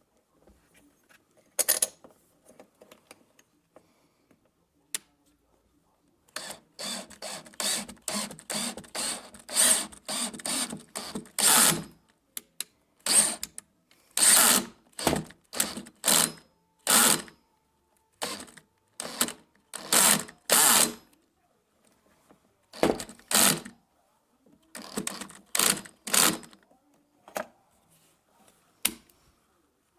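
Screws being driven in while a door lock reinforcement plate is fastened to a door: a long series of short, sharp tool bursts, some in quick runs and some about half a second apart.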